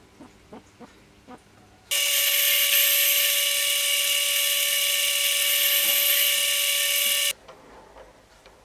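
Metal lathe running, its chuck spinning at speed: a loud steady whine with a hiss that starts abruptly about two seconds in and stops abruptly about seven seconds in. A few faint light taps come before it.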